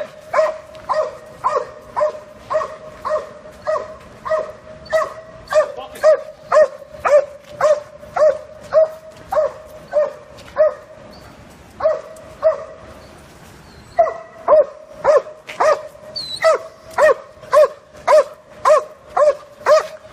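A dog barking over and over in a steady rhythm, about two barks a second, with a break of a couple of seconds about two-thirds of the way through.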